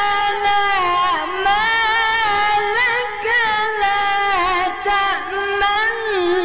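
Quran recitation: a single unaccompanied voice chanting in melodic tajweed style, drawing out long notes that waver and glide with ornaments, pausing only briefly for breath.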